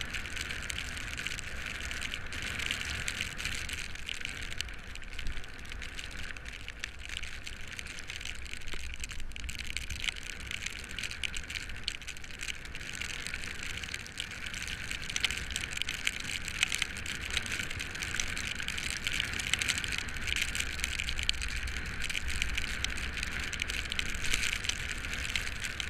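Bicycle tyres hissing steadily over wet tarmac, with wind rumbling on the camera microphone. Scattered sharp ticks, more frequent in the second half.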